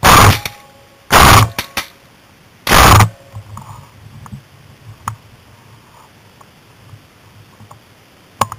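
Three very loud shots from a Beretta Xtrema 12-gauge semi-automatic shotgun fired in quick succession, about a second and a half apart, the last about three seconds in.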